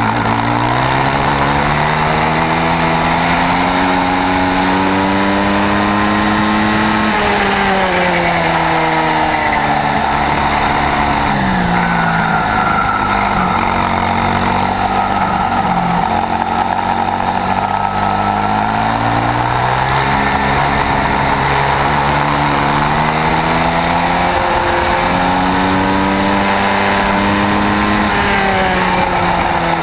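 Swissauto 250 two-stroke engine of a KZ shifter kart at racing speed, recorded onboard: its pitch climbs for several seconds under acceleration, then falls away under braking and downshifts, several times over.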